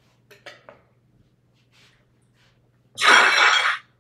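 A mixing bowl handled with a few light clinks, then a loud brushing scrape lasting about a second near the end as flour is wiped out of the bowl.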